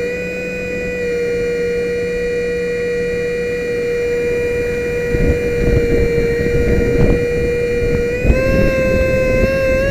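A 64 mm brushless electric ducted fan on an RC jet whining at steady throttle, heard close from a camera on board. From about halfway through, wind buffets the microphone, and the whine steps up slightly in pitch near the end.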